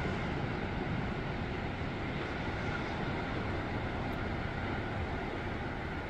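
Steady rushing noise of wind and distant ocean surf, heaviest in the low range.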